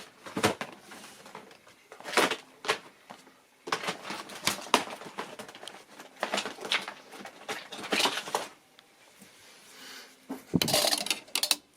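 Irregular clicks, taps and light clatter from hands handling small tools and computer parts, with a stretch of rustling near the end.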